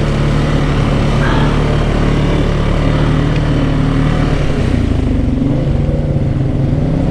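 Can-Am Outlander 700 ATV engine running steadily, its note shifting about five seconds in.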